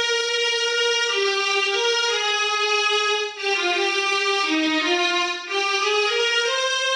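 Casio SA-80 mini keyboard playing a slow single-note melody, each note held until the next. The line steps down to its lowest notes in the middle and breaks off briefly twice, a little over three seconds in and again about five and a half seconds in.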